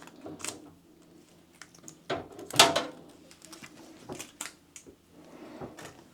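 Hands handling PC hardware parts, making irregular clicks and clatter of plastic and metal, with a louder rattle about two and a half seconds in.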